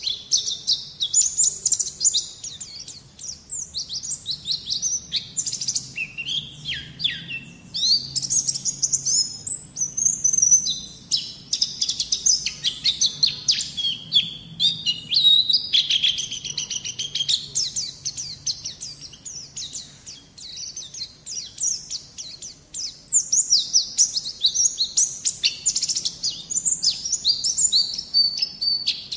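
White-eye (pleci) song: a fast, unbroken stream of high twittering chirps and warbles, as heard in a masteran tutor track for young white-eyes.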